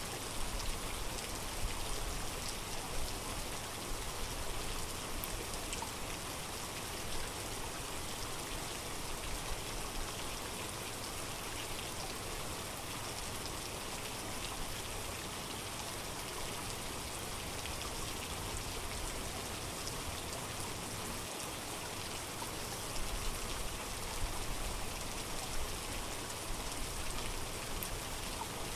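Steady heavy rain falling and pattering on surfaces, an even hiss of countless drops. It swells louder briefly near the start and again later on.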